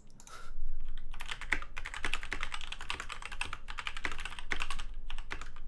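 Fast continuous typing on a DMK02 mechanical keyboard with off-brand red linear switches: a dense, rapid run of keystroke clicks starting about half a second in.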